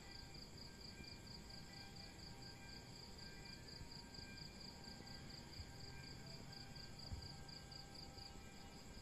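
Crickets chirping faintly in a rapid, even, high-pitched pulse. A soft low thump comes about seven seconds in.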